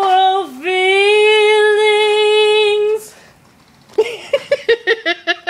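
A woman humming one long held note that dips in pitch once, briefly, about half a second in, and stops about three seconds in. After a short pause comes a quick run of short, chopped vocal sounds, about six a second.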